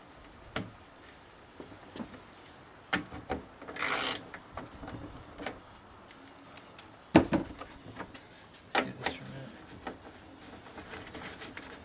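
Scattered clicks and knocks of tools and plastic fan parts being handled while the cooling fans are fastened onto a radiator, with a short rasp about four seconds in and the loudest knock about seven seconds in.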